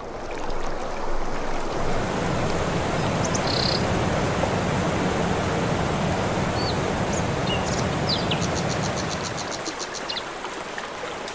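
River water rushing over rocks, a steady noise that eases a little near the end. Over it come a few faint high chirps, with a quick run of about a dozen even pulses in the second half.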